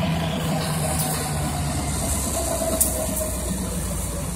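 Low, steady rumble of a diesel locomotive engine, slowly fading, with a few faint clicks.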